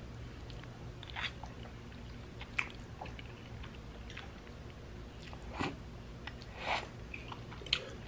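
A person eating spaghetti in sauce close to the microphone: soft chewing and noodle-slurping in short, scattered sounds over a faint steady hum.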